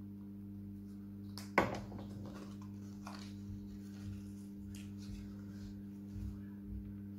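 Paper handling: a cut-out paper flower being folded and pressed onto card, with faint rustles and light taps. One sharp tap about a second and a half in, over a steady low hum.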